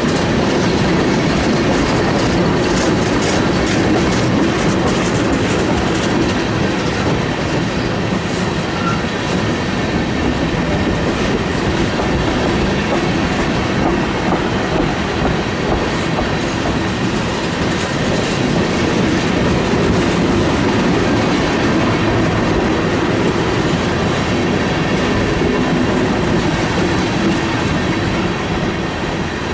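A train rolling past close by: a steady loud rumble of steel wheels on rail, with irregular clicks and clatter and a faint thin squeal from the wheels.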